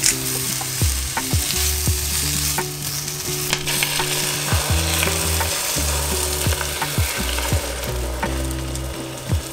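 Sliced onions frying in oil in a pan, sizzling steadily with small pops and crackles, while beaten egg is poured in over them. Under the sizzle run low steady tones that change pitch every second or so.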